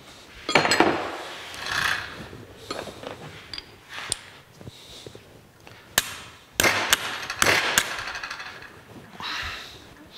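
Hammer tapping a hex key seated in the screws of a three-jaw lathe chuck's top jaws: sharp metal-on-metal taps in small bunches, one around a second in, a couple around four to six seconds, and a quick cluster around seven seconds. The taps are shock-loading screws that are really tight to break them loose.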